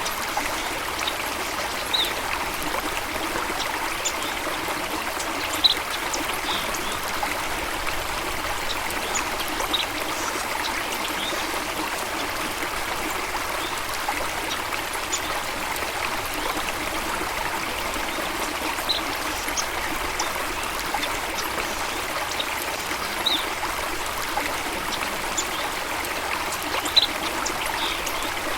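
Steady running water of a stream or small waterfall, with short bird chirps scattered through it.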